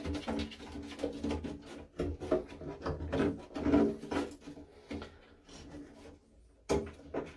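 A toilet ball cock (float valve) being fitted by hand into the cistern's inlet hole: a run of small plastic clicks, knocks and scrapes as the body and nut are handled and turned, which dies down for a moment about five seconds in and resumes near the end.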